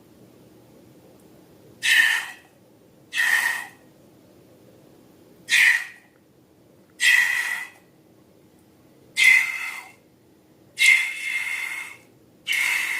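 Slime and air being squeezed out of balloons, making about seven short, hissy, squelching bursts at irregular intervals.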